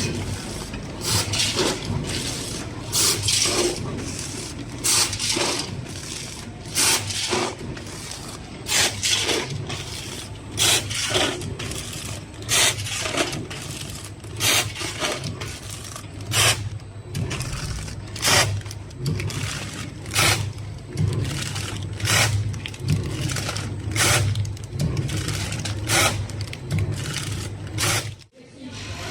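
Chain bucket-conveyor stick packaging machine (vertical three-side-seal packer) running: a steady low hum with a sharp burst of noise repeating about every two seconds, its regular machine cycle.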